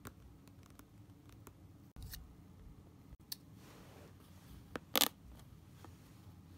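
Scissors snipping into the cardboard backing of a plastic blister pack: scattered small clicks and crunches, with one sharp, loud cut about five seconds in.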